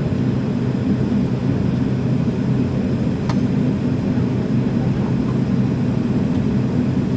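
Steady droning hum of an MD-80 airliner heard from inside its cabin, with low level tones. A single faint click about three seconds in.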